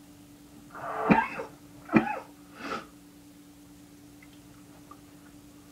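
A man coughing and clearing his throat: three short bursts in the first three seconds, the first the loudest, then quiet apart from a faint steady hum.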